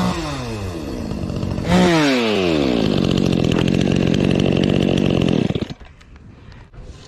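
Chainsaw engine revving: the revs fall off as the throttle is let go, then it is revved sharply again about two seconds in and held at a steady high speed for a few seconds. Near the end the throttle is released and the saw drops abruptly to a much quieter idle.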